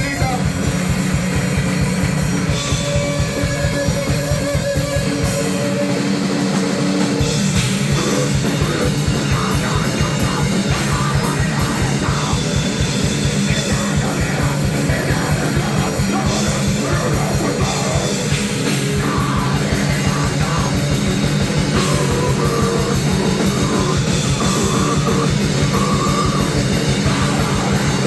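A live grindnoise band playing loud and fast: rapid, relentless drumming under a dense wall of distorted guitar and bass.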